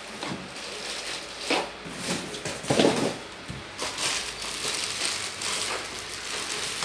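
Plastic wrapping rustling and crinkling while fan parts are handled and unwrapped, with scattered knocks of plastic parts and cardboard. A louder thump comes about three seconds in.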